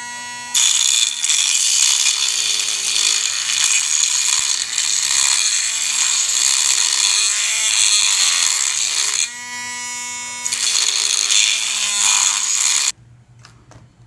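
Small high-speed grinding tool at work on the fan's shaft-holding centre part, roughening the surface for epoxy. It spins free with a steady whine, bites in about half a second in and grinds for about nine seconds, runs free again for about a second, grinds for two more seconds, then shuts off abruptly near the end.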